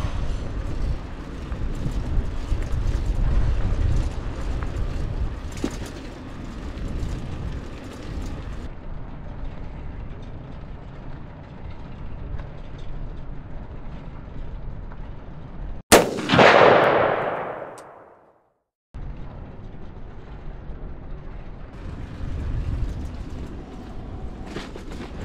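Outdoor street ambience with a low rumble. About two-thirds of the way in comes a single sharp bang, the loudest thing heard, with a boom that fades over about two seconds, followed by a moment of dead silence.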